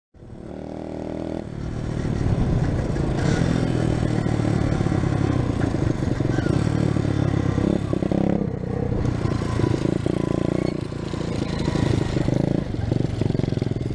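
SSR 110cc pit bike's single-cylinder four-stroke engine revving hard as the bike pulls away, then rising and falling in pitch as the throttle is opened and eased off while riding.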